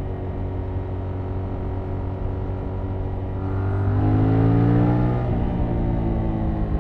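2021 Yamaha MT-07's 689 cc parallel-twin engine through its stock exhaust, running steadily under way. About three and a half seconds in it revs up, then drops back about a second and a half later.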